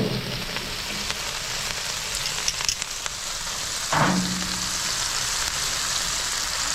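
Food frying on a Blackstone flat-top griddle: a steady sizzle, with a short low sound about four seconds in.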